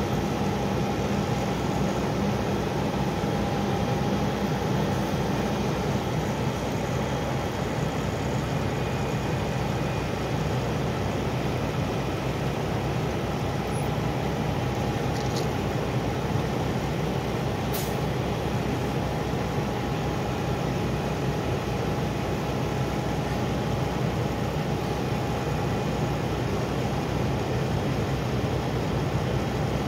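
Steady low rumble of idling diesel engines from heavy trucks and emergency vehicles, with no change in pitch or speed.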